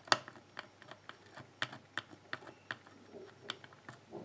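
A lock pick clicking and tapping against the pins inside a pin tumbler lock as it is picked under tension: a string of sharp, irregular clicks, the loudest just after the start.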